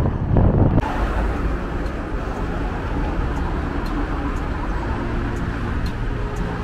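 Wind buffeting the microphone for a moment. Then, after a sudden change, a steady wash of road traffic and a passing double-deck electric commuter train.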